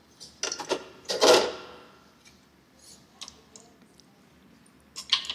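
A baby handling small toys, balls and a cup, on the floor: a few sharp knocks, a louder clatter about a second in, scattered light clicks, then more clatter near the end.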